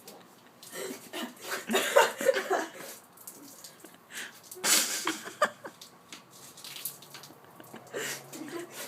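Soda gushing and splashing from a shotgunned can of Sierra Mist while a person gulps and sputters, in irregular bursts that are loudest about two seconds and five seconds in.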